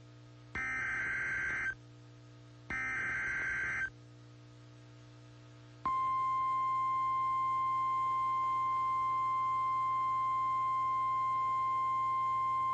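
Emergency Alert System broadcast tones: the second and third of three harsh, buzzy SAME header data bursts, each about a second long. After a short pause comes the NOAA Weather Radio warning alarm, a single steady tone that starts suddenly about six seconds in and holds, announcing a new weather warning.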